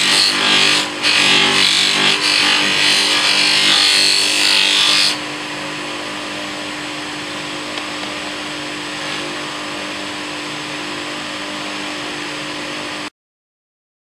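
Polishing wheel on a bench polishing motor, with a brass trigger guard pressed against it for the first five seconds: a loud rushing hiss of metal on the wheel, briefly easing twice. Then the part comes off and only the motor's steady hum is left, until it cuts off near the end.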